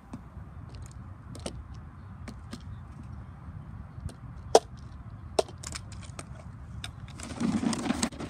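Plastic clicks and knocks as a reach-grabber on a long pole grips, lifts and tips a plastic wastebasket, with a sharp knock about halfway and a louder, rougher noise for about a second near the end.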